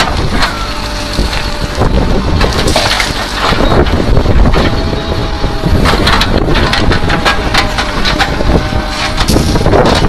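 JCB backhoe loader's diesel engine running under load while its rear bucket scrapes and crunches through broken rock and paving stones, with stones knocking and grinding against the steel bucket.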